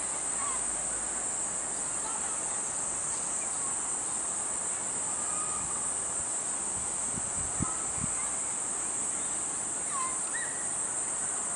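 Steady high-pitched chorus of insects, with a few faint chirps and a couple of soft knocks about seven to eight seconds in.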